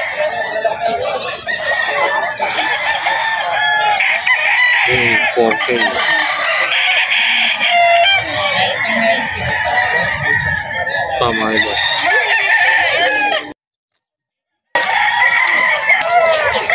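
Many gamefowl roosters crowing over one another, with clucking, in a dense chorus. The sound cuts out completely for about a second near the end, then the crowing resumes.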